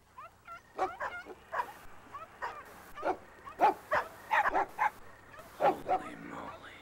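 Several dogs barking and yelping in short, repeated calls.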